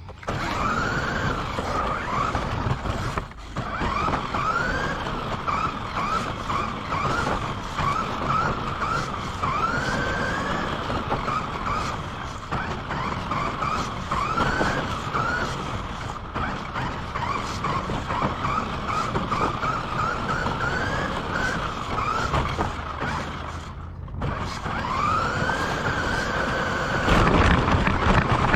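RC car driving on pavement, heard from a camera on board: the motor and gears whine in repeated rising and falling sweeps as the throttle is worked, over a rough rumble of tyres on the path. There are two brief drops in the sound, and it is loudest near the end.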